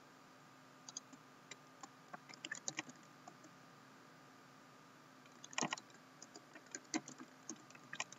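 Typing on a Lenovo laptop keyboard: faint, scattered key clicks in two runs with a pause of about two seconds between them, over a faint steady hum.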